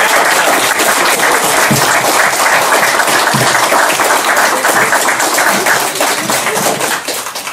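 Audience applauding: many people clapping at once, loud and steady, dying away near the end.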